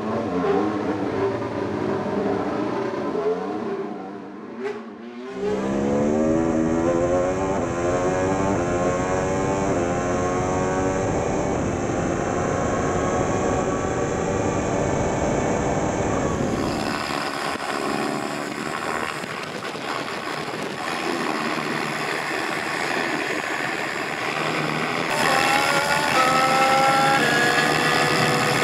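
Mercedes W14 Formula 1 car's turbocharged V6 hybrid engine: it revs unevenly at first, then accelerates with its pitch climbing steadily. Near the end it rises in short repeated steps as it shifts up through the gears.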